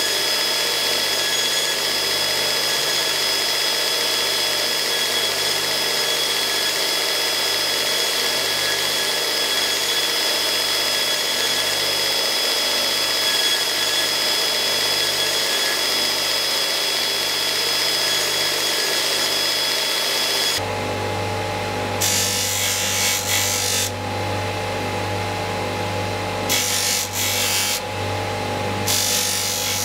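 Belt grinder running steadily with a high whine over a hiss as a round steel piece is held to its contact wheel. About two-thirds through, the sound cuts to a different bench machine with a yellow abrasive wheel, a humming motor with irregular bursts of scraping as the steel is pressed against the wheel.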